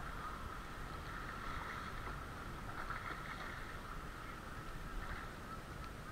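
Dog whining without a break in a high, wavering tone that rises now and then, over low wind rumble on the microphone.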